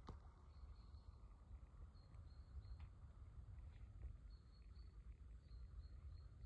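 Near silence: faint outdoor ambience with a low rumble and faint, intermittent high chirps.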